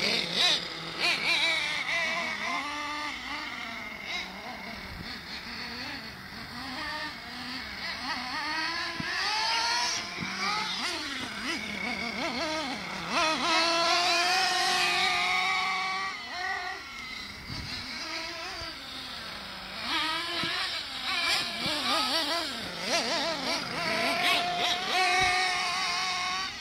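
Small nitro glow engines of two HPI Trophy Truggy radio-controlled trucks racing, revving up and down with the throttle in repeated rising and falling whines, loudest about halfway through.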